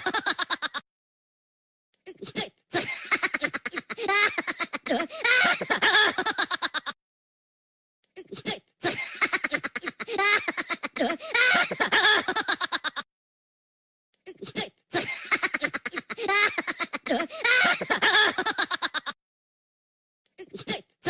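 Minions laugh sound effect: cartoon Minion voices laughing in quick pulses. The same clip of about four and a half seconds plays over and over, with a second of silence between repeats.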